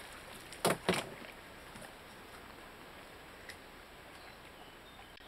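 Two sharp knocks, about a quarter of a second apart, followed by a faint steady background hiss with a few light ticks.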